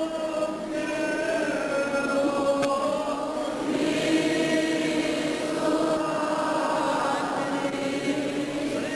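A group of voices singing a slow church hymn together in long held notes, a hymn sung while Communion is given.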